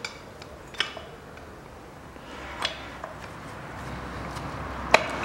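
Light clicks of a spare-wheel winch's housing and cable bracket being handled and fitted together in gloved hands over a soft rustle, with one sharp click near the end.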